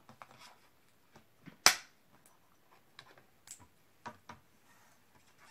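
Stampin' Up Stamparatus stamp-positioning tool being handled: one sharp click about a second and a half in, then a few lighter clicks and taps.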